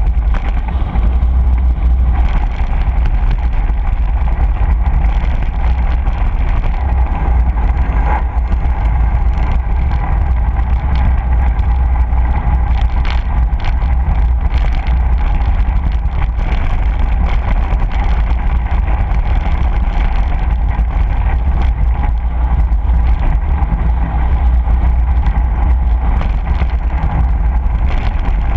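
Wind rumbling steadily on a bike-mounted GoPro's microphone as a mountain bike rolls along a gravel road, with tyre noise on the gravel and a few short knocks from bumps around the middle.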